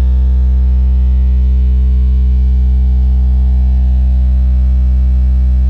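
A loud, steady, deep electronic bass drone with many overtones, held on one pitch: the kind of tone played through a speaker to make the paint on it jump and splatter.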